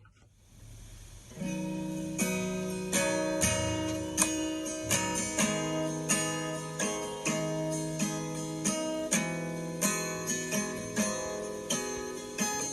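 Acoustic guitar strumming chords in a steady rhythm, starting about a second and a half in: the instrumental introduction to a hymn.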